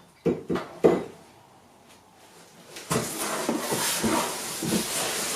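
Cardboard box and its thick packaging being handled: three short knocks in the first second, a brief lull, then steady rustling and scraping from about three seconds in.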